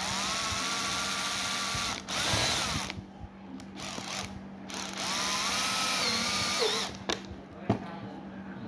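Cordless drill-driver driving screws through a metal DIN rail into a mounting plate, in two runs of about two seconds each. Each time the motor whine rises as it spins up, then holds steady. A short, louder burst comes at the end of the first run.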